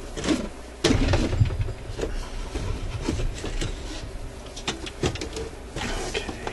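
Handling noise as a record changer is lifted and tipped over in its wooden suitcase case: a heavier thump and rumble about a second in, then scattered knocks, clicks and rattles of the metal deck against the wood.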